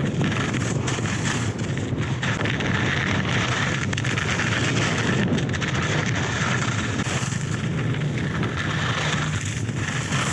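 Steady wind rush buffeting the microphone of a skier moving downhill, mixed with the hiss and scrape of skis carving over soft, slushy snow.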